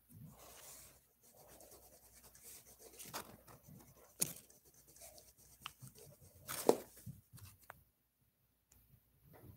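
Wax crayon scribbling on paper: a soft, scratchy rubbing, broken by a few sharp taps, the loudest about two-thirds of the way through.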